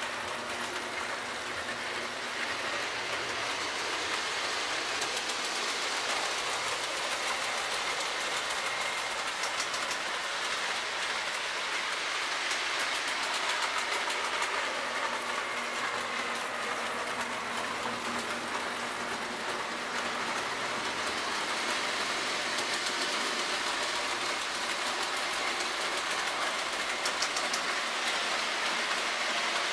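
K-Line O-gauge Alco diesel and army train running on three-rail track: a steady mechanical whir of the locomotive's motor and gearing mixed with the rattle of wheels on the rails.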